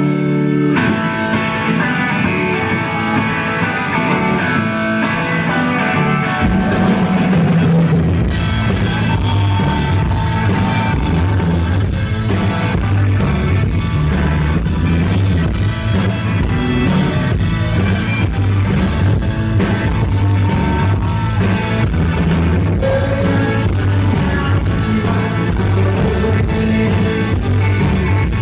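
Rock band playing live, with electric guitar and singing. Held sustained tones open the passage, and the full band with drums comes in about six seconds in.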